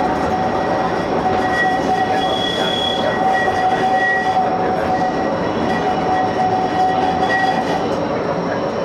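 Inside a Bombardier Flexity 2 light-rail tram running along the track: a steady rumble of wheels and running gear with a high, steady whine over it, which fades near the end.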